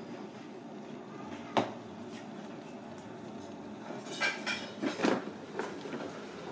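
Stainless steel bowl knocking and clinking as it is handled and set down: one sharp knock about one and a half seconds in, then a cluster of clatters around four to five seconds in.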